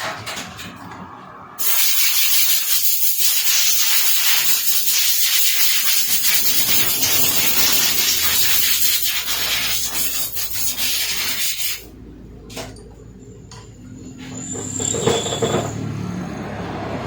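Compressed-air blow gun hissing in one long steady blast of about ten seconds that starts and stops abruptly. A quieter low rumble follows and swells near the end.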